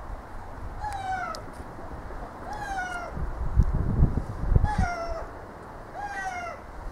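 An animal calling over and over: about five short, meow-like calls, each falling slightly in pitch, a second or more apart. Low rumbling comes and goes underneath and is loudest around the middle.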